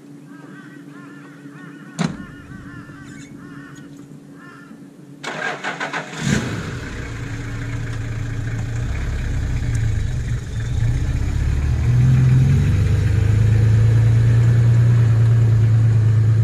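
A car door shuts about two seconds in; about five seconds in a Toyota LandCruiser ute's starter cranks and the engine catches, then runs and grows louder from about twelve seconds as the ute pulls away towing the boat.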